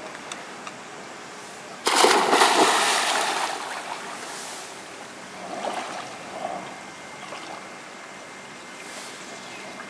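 A person jumping into a swimming pool: one loud splash about two seconds in, then water sloshing as it dies away over a couple of seconds.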